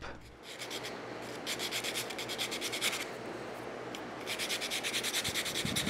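Short oak dowel peg rubbed back and forth by hand on a sheet of sandpaper laid flat, rounding over its sharp end edges: quick scratchy sanding strokes, about ten a second, in two spells of rubbing.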